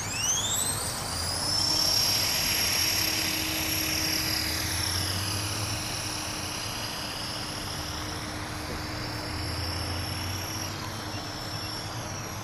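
Radio-controlled model plane's motor and propeller: a high whine that climbs sharply in pitch about a second in as the throttle opens for takeoff, then holds high with slow dips and rises as the plane flies.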